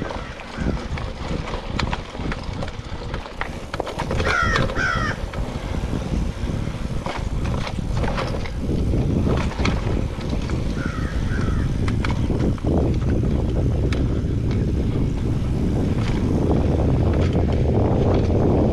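Mountain bike rolling along dirt singletrack: a steady rush of tyre noise with rattling and knocking from the bike over bumps, growing louder about halfway through. A bird calls a few times about four seconds in and again near the middle.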